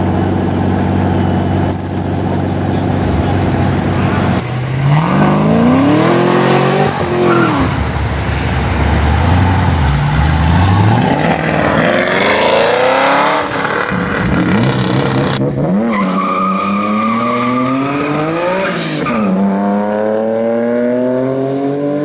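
Sports car engines: a steady low idle, then from about four seconds in several hard accelerations, the pitch climbing and dropping back at each gear change.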